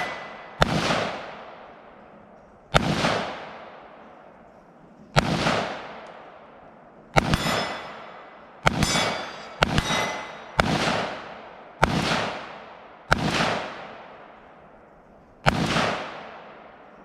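About ten gunshots fired at an unhurried pace during a three-gun match stage, one to two and a half seconds apart, each echoing away. A couple of the shots are followed by a metallic ring, as from steel targets being hit.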